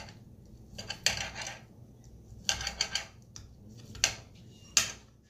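Table knife sawing through grilled chicken on a plate, with a fork holding it down. The blade scrapes and clicks against the plate in short strokes, in about four bursts with pauses between, ending in a sharp click near the end.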